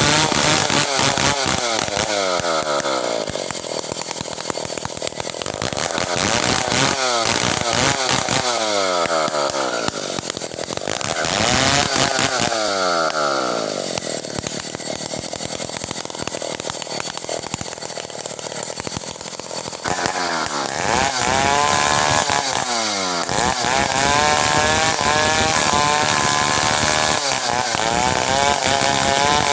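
Stihl 070 two-stroke chainsaw cutting merbau hardwood at full throttle. Its engine pitch sags in several falling sweeps, picks back up each time, and holds steadier near the end.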